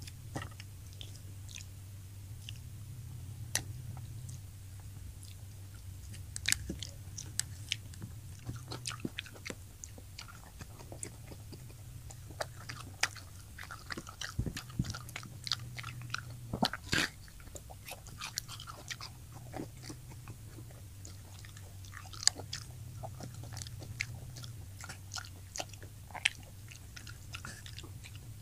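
Close-miked crunching and chewing of crispy fried tilapia: irregular sharp crunches and bites scattered throughout, over a steady low hum.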